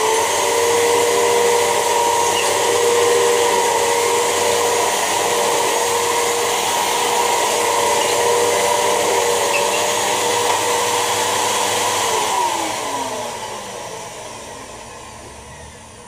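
Hoover WindTunnel T-Series upright bagless vacuum cleaner with a 12-amp motor, running with a steady whine while it picks up paper shreds and dirt from a bare floor. About twelve seconds in the motor winds down, its pitch falling.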